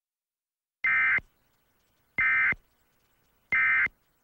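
Emergency Alert System end-of-message signal: three short buzzing bursts of SAME digital data, each about a third of a second long and about 1.3 seconds apart, marking the end of the alert.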